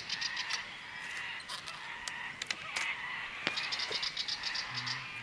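Birds calling: two runs of quick high chirps, one at the start and one in the second half, with a few sharp single notes between them over a steady background chorus.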